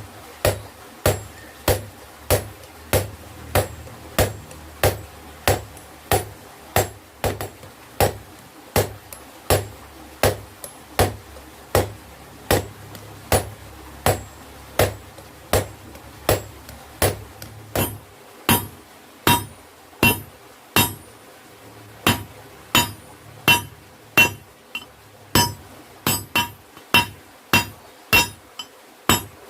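Hammer blows on hot steel against an anvil, a steady rhythm of about two strikes a second as a chisel is hand-forged into a knife blade. The later blows ring more.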